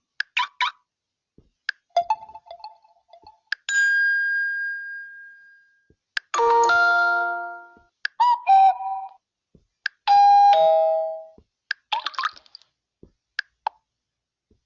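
Huawei Y6 Pro notification sounds previewed one after another: a string of about six short electronic chimes, pings and two-note dings, each fading out within a second or two, with short clicks between them.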